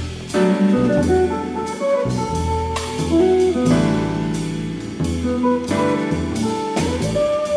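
Live small-group jazz: a drum kit played with sticks on cymbals and drums, with a walking double bass and a semi-hollow electric guitar playing single-note lines.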